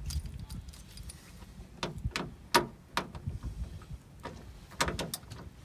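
Sharp clicks and light metallic rattling of small screws and a screwdriver against the plastic door pull handle as its screws are fitted back into the Sprinter door panel, clustered about two seconds in and again near the end, over a low rumble.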